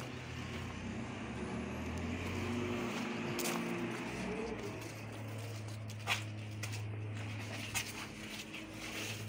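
Electric gate motor of a bi-folding swing gate running with a steady hum, its pitch stepping up about halfway through, with two short clicks near the end.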